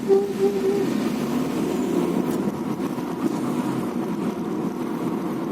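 Car driving with a wavering squeal for about the first second, then only running and road noise. The car squeaks or grinds on every right-hand turn since its brakes were renewed, and the cause is unknown.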